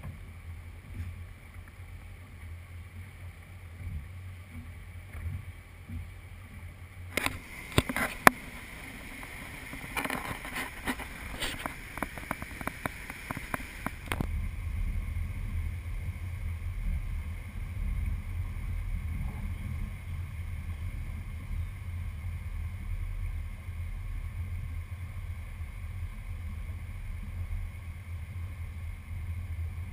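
Low steady rumble of a boat underway, motor and water noise on a deck-mounted camera. Between about seven and fourteen seconds in comes a run of sharp knocks and rattles, and after it the rumble is louder.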